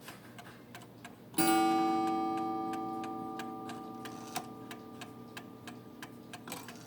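Seth Thomas Adamantine mantel clock ticking steadily, then its strike sounding a single blow about a second and a half in. The struck note rings on and slowly dies away under the ticking.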